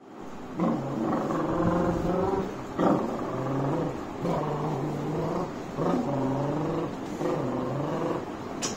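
A man's voice imitating a train: a low, steady vocal hum held in about six phrases of a second or so each, the pitch stepping between phrases, with no words.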